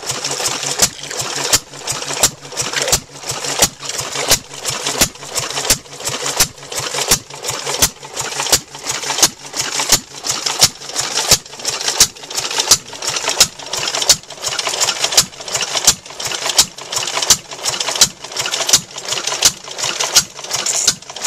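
Antique Climax reciprocating water pump running, belt-driven by an old stationary engine, with a regular clank about twice a second over a steady hiss. The pump is working properly on new rubber bucket washers and delivering good pressure.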